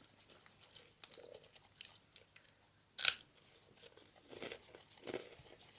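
Homemade glue-and-detergent slime being stirred in a plastic bowl: faint sticky crackling and squelching clicks, with one louder wet crackle about three seconds in.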